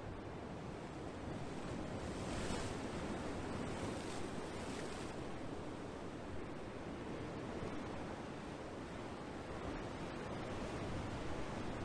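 Ocean waves: a continuous rush of surf, with a brighter hiss of breaking water swelling about two seconds in and fading again a few seconds later.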